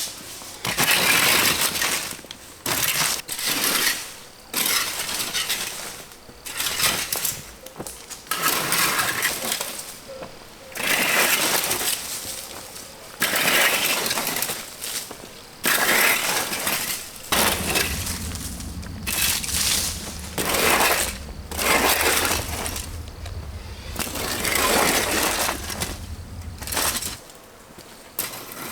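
Hand tools digging and scraping through stony ground, each stroke a crunching, rattling scrape of rock and gravel, repeated about every one to two seconds. A steady low hum runs underneath through the second half and cuts off shortly before the end.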